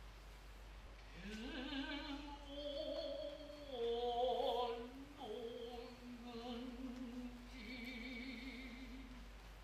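A man's voice chanting a long, drawn-out noh vocal line in a few held notes with a wavering pitch, starting about a second in. This is utai, the chanted singing of noh.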